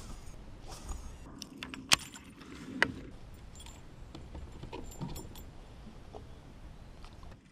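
Fishing tackle handled in a kayak: light metallic jingling and scattered clicks, with two sharper clicks about two and three seconds in.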